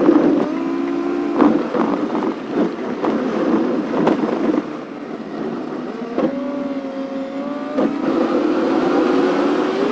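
An engine running with its pitch shifting, stepping up about six seconds in and slowly rising near the end, with scattered knocks and clatter over it.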